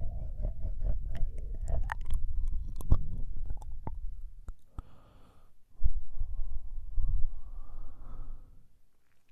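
Close wet licking and mouth clicks against a binaural microphone's ear, with a low rubbing rumble, then a short breath and a longer breathy exhale that fades out near the end.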